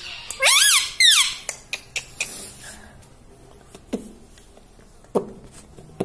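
Rose-ringed parakeet giving two loud screeching calls in quick succession, each rising then falling in pitch, followed later by two shorter, quieter falling calls.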